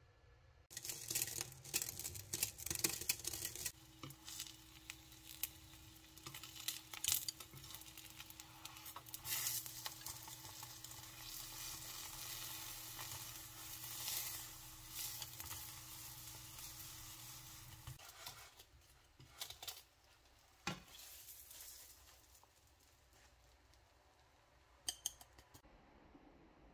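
A frozen Korean japchae pancake sizzling as it fries in a nonstick frying pan, with sharp clicks of chopsticks against the pan and a steady hum underneath. The sizzle stops about two-thirds of the way through, followed by a few light clicks.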